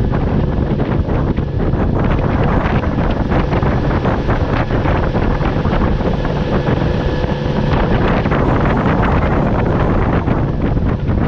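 Heavy wind buffeting on a boat-mounted action camera's microphone as the boat runs under power, over the steady drone of a Mercury 60 hp outboard motor, with frequent short crackles.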